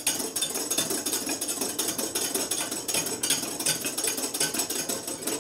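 Wire whisk beating thickening egg yolks in a metal bowl: a rapid, steady rhythm of clicks and scrapes as the sabayon for hollandaise is whipped to the point of being ready.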